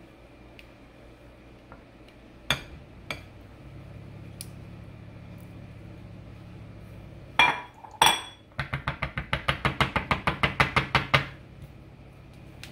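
Silicone spatula and glass bowls knocking together while thick dressing is scraped from one bowl into another: a few light clicks, then two sharp knocks, then a quick run of about twenty taps, around eight a second, as the spatula is rapped against the glass to shake it clean.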